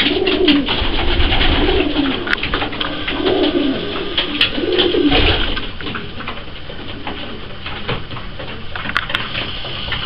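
Racing pigeons cooing: a few low, rolling coos in the first half, then quieter, with scattered sharp clicks.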